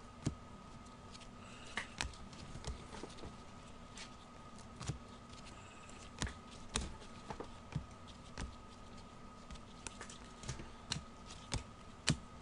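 Trading cards from a freshly opened pack being handled by gloved hands: light, uneven clicks and taps, one or two a second, as the cards are slid apart and set down on the table, over a faint steady hum.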